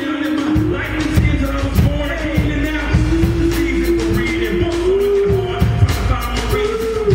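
Live gospel band music with drum-kit hits, and a singer holding long notes that bend slightly in pitch over it.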